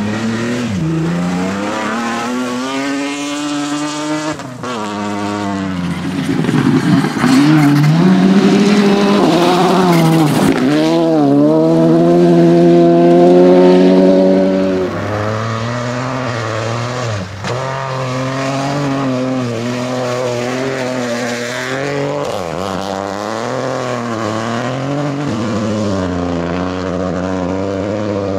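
Rally car engines revving hard as cars drive past on a gravel stage. The engine pitch repeatedly climbs and drops with acceleration and gear changes, loudest around the middle.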